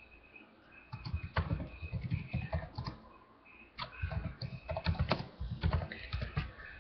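Typing on a computer keyboard: quick runs of clicking keystrokes with dull thuds, in two bursts split by a short pause.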